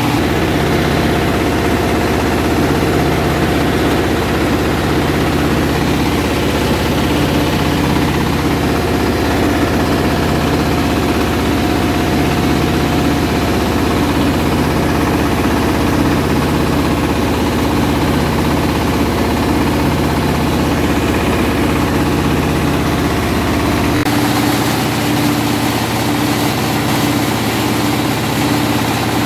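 Single-cylinder diesel engine running steadily, driving a rice milling machine as milled rice streams out; a low, slowly pulsing drone. The low tone shifts abruptly about 24 seconds in.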